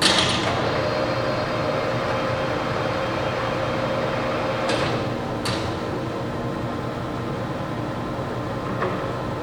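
Turnmaster 1550 engine lathe running at a higher spindle speed: a steady hum and whine. Brief sharp high sounds come at the very start and twice about five seconds in.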